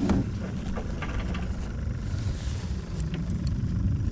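Wind rumbling on the microphone, with a few light knocks in the first second and a half as a fish and gear are handled in a plastic kayak.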